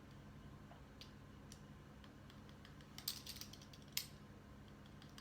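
Faint clicks and taps of a pizza cutter wheel rolling through rolled-out dough on a board, cutting straight strips. A few soft clicks come early, then a sharper cluster about three seconds in and another a second later.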